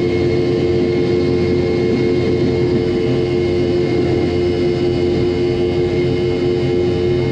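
Boeing 717's two rear-mounted Rolls-Royce BR715 turbofans running at takeoff power during the takeoff roll, heard inside the cabin right beside the engine. It is a loud, steady engine noise with several fixed tones and a thin high whine.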